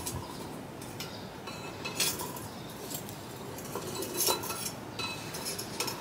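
A few light clinks of metal utensils or cookware, short sharp taps a second or two apart with a brief ring.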